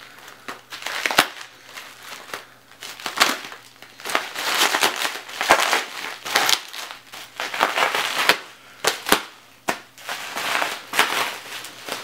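Plastic bubble-wrap packaging crinkling and crackling as it is cut open with a knife and handled, with many irregular sharp clicks and snaps.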